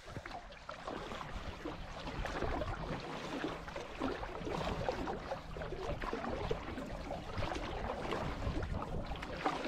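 Water splashing and lapping against a canoe as it is paddled across a lake: an even wash of small, irregular splashes.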